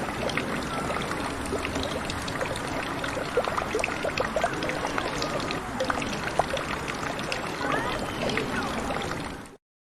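Water trickling and splashing steadily, with scattered small clicks, cutting off abruptly near the end.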